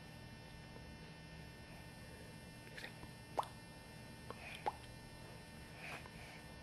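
Quiet room tone with a steady low hum, broken by a few faint short clicks around the middle and a couple of soft brief sounds near the end.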